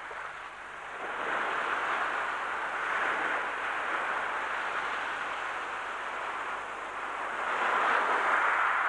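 Small waves breaking and washing up a sand beach: a steady hiss of surf that swells about a second in and again near the end.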